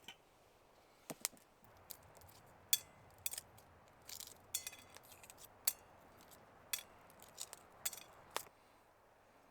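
A run of irregular sharp clicks and clinks, small hard items being handled and knocked together, stopping about a second before the end.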